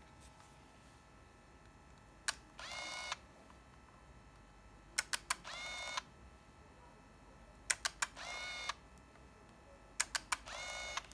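Olympus Trip AF 51 compact 35mm camera fired four times. Each time there is a shutter click or a quick few clicks, then a half-second motor whir that rises and levels off as the film is wound on.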